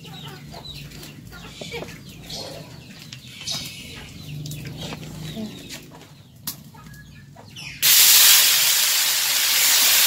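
Faint chicken clucking over a wok heating on a wood fire. About eight seconds in, wet blended spice paste is poured into the hot wok and sets off a sudden, loud, steady sizzle.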